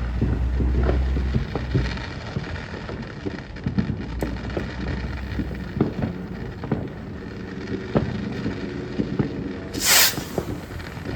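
Home fireworks: scattered pops and crackles throughout, with a low rumble in the first two seconds. About ten seconds in there is a loud, brief hiss of a small firework rocket launching.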